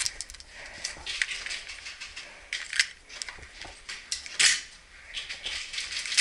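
Airsoft guns firing single semi-auto shots in a close indoor space: several short, sharp hissing cracks spaced irregularly, the loudest about four and a half seconds in.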